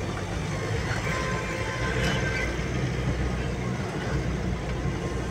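Engine and road noise of a slow-moving vehicle heard from inside its cabin: a steady low rumble.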